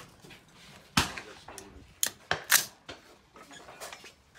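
A handful of sharp clicks and knocks as the AR-15 rifle is handled on the wooden bench. The loudest come about a second in and about two and a half seconds in.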